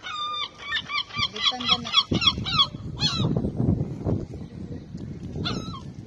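A seagull calling: one drawn-out note, then a fast run of short yelping notes, about five or six a second, for roughly two and a half seconds. Two single calls follow, near the middle and near the end, over a low rumble.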